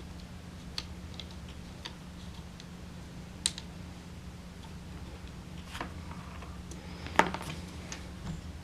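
Scattered small clicks and knocks of a clamp-on flashlight mount and its screws being handled and fitted onto an AR-15's A2 front sight post, the sharpest about three and a half and seven seconds in, over a steady low hum.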